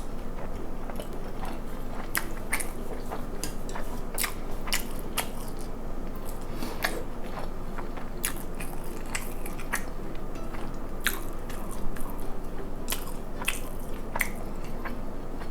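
Close-miked chewing and biting of food, with sharp, irregular crunchy clicks throughout.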